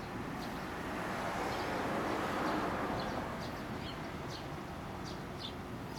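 Outdoor traffic noise that swells and fades about two seconds in, with small birds chirping in short, high calls throughout.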